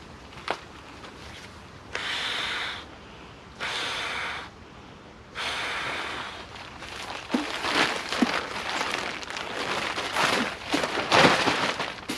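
Handling of camping gear, most likely tarp or poncho fabric: three short rushing strokes, each under a second, then steady rustling and rubbing with small clicks and knocks.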